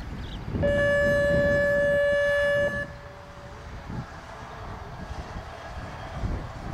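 A show-ring horn or buzzer sounds one steady tone for about two seconds, starting about half a second in: the signal that typically lets a jumper rider start the round. Wind rumbles on the microphone throughout.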